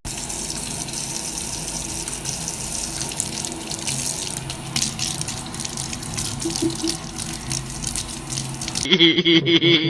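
Water running steadily, like a tap into a sink.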